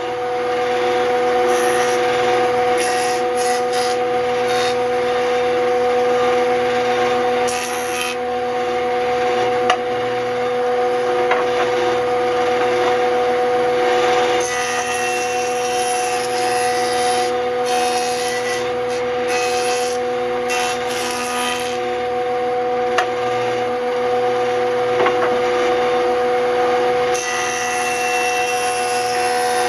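Delta benchtop jointer running with a steady whine while its cutterhead shaves the edge of a laminated maple-and-purpleheart board. The cutting noise swells and fades as the edge is pushed across the knives in several passes.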